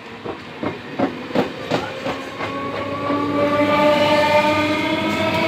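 EMU local train pulling out of the station: its wheels clack sharply over rail joints several times in the first two and a half seconds, then a whine from the electric traction motors rises steadily in pitch and grows louder as the train gathers speed.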